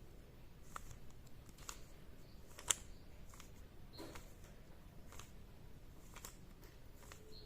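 Faint, irregular plastic clicks of a Rubik's cube's layers being turned by hand, with one sharper click about two and a half seconds in.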